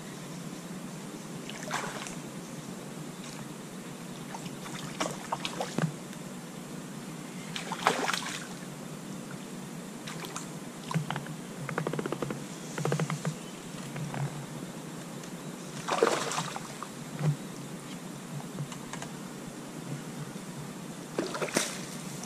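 Steady faint hiss on a quiet riverbank, broken every few seconds by short noises, among them small splashes on the water.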